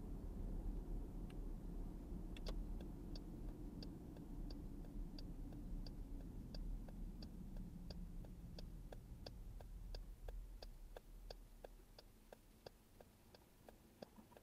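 Car's turn signal clicking steadily, about one and a half clicks a second, over low road and tyre rumble that fades away as the car slows to a stop.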